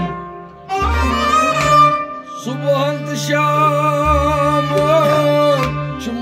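Music from a Kashmiri Sufi song: a bowed-string melody with vibrato over a low held note. The sound dips briefly near the start and then comes back in.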